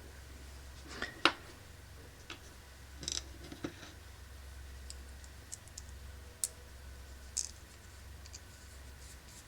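Scattered light clicks and taps of small metal parts being handled: knurled thumb screws and washers being fitted onto rifle trigger cross pins. A faint low hum runs underneath.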